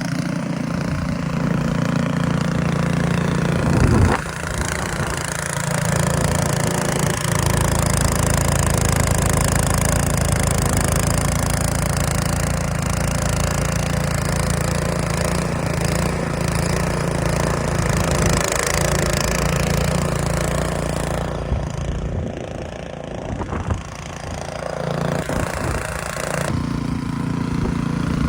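An engine running steadily, with a steady low hum that eases off briefly about three quarters of the way through and then picks up again.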